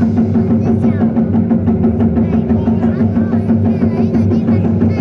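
Drum ensemble playing a fast, dense, continuous rhythm on large drums, loud and unbroken.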